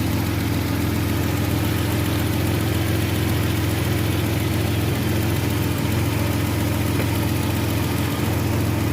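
Nissan Maxima engine idling steadily, running on an ECM fitted with a replacement ignition-coil driver chip.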